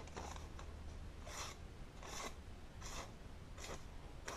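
A freshly sharpened knife blade being wiped down, a series of soft rubbing strokes coming a little under once a second.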